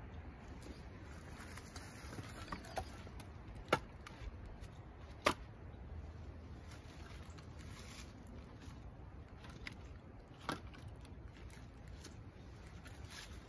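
Split firewood being stacked by hand onto a woodpile: scattered sharp wooden knocks as pieces are set down, three of them louder, about four and five seconds in and near ten seconds, among fainter clatter.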